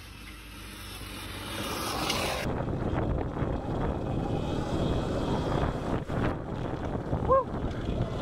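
Sur-Ron Light Bee X electric dirt bike ridden fast over bumpy grass. At first it approaches from a distance and grows louder. Then, after about two and a half seconds, it is heard from the bike itself, with wind noise on the microphone and a brief high chirp about seven seconds in.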